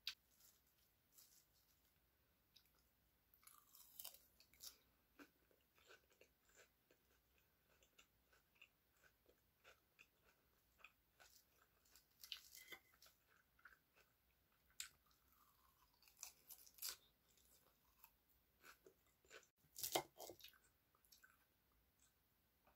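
Faint close-up chewing of crisp, dressed salad greens, with short crunches that come at an uneven pace and the odd clink of a fork on a ceramic plate. A louder cluster of crunches comes near the end.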